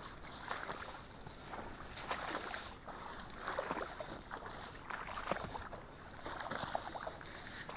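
Footsteps wading in tall boots through shallow floodwater and wet grass: uneven splashing and sloshing with each step.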